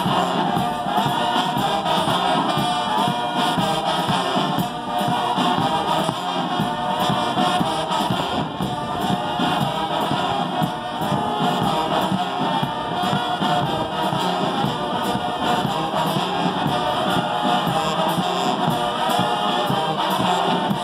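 Music with a group of voices singing together, continuous and steady in level.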